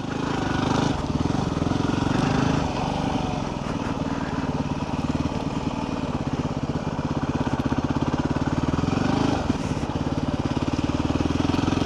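Yamaha WR250R's single-cylinder four-stroke engine running steadily while the bike is ridden, its pitch shifting slightly now and then with the throttle.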